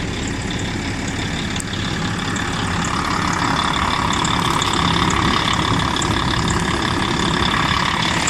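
Volvo D12 diesel idling with a steady squeal from the accessory drive belt, which gets louder about three seconds in. The squeal remained after the tensioner and idler pulleys were greased; the owner traces it to the belt rubbing on a pulley.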